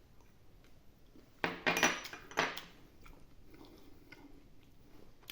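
Tableware clattering: a short run of knocks and scrapes with a brief ring, about a second and a half in, then only a few faint clicks.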